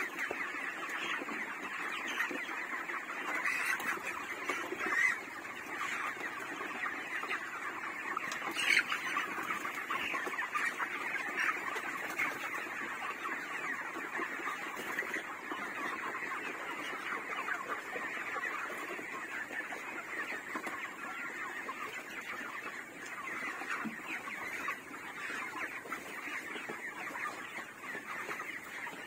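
A large flock of 32-day-old broiler chickens calling together in a steady, dense chatter of many overlapping calls, with a couple of louder single calls about five and nine seconds in.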